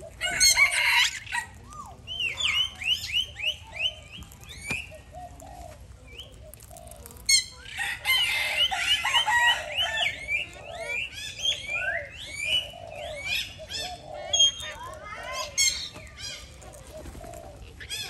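A group of Alexandrine parakeets calling: many short, harsh chirps and screeches overlapping one another, with a loud burst about a second in and a longer, denser spell of calling from about halfway through.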